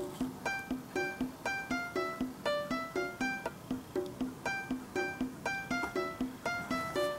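Light, cheerful background music: a plucked-string tune over a steady, bouncy beat of low notes, about two a second.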